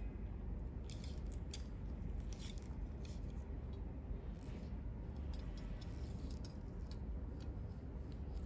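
Scattered light clicks and scrapes of small objects being handled, over a steady low hum.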